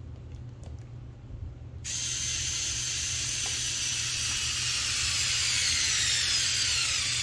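Cordless drill driving a screw into a desk frame: the motor starts about two seconds in and runs without a break for about five seconds, its pitch falling steadily as the screw tightens.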